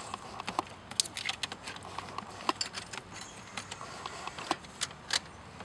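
Irregular light metallic clicks and clinks, some with a short ring, as a starter and its parts and tools are handled and fitted into place in a car's engine bay.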